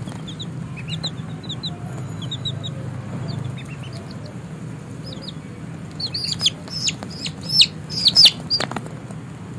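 Baby chicks and ducklings peeping: a scatter of short, high, downward-sliding peeps that grow louder and come thick and fast in the last few seconds, over a low steady hum.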